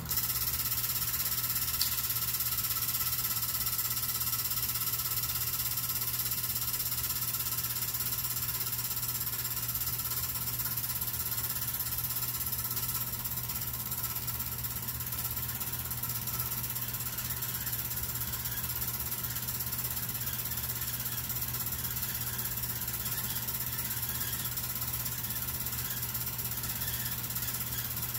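8mm film projector coming on abruptly and running steadily: a constant mechanical whir with a low hum from its motor and film-advance mechanism.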